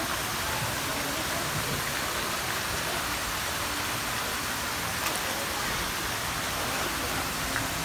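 Steady rushing splash of a pool fountain's water jet falling into a swimming pool.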